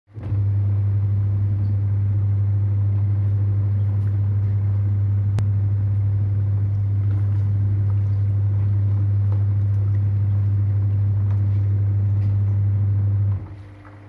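Toshiba twin-tub washing machine's wash motor running with a steady low hum as the pulsator churns clothes in soapy water. The hum cuts off about a second before the end.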